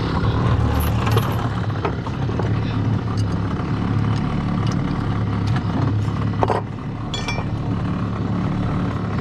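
Small brush-cutter engine driving a homemade long-tail boat propeller shaft, running steadily at low speed. Scattered short metallic clinks and knocks come through over it, one knock about six and a half seconds in.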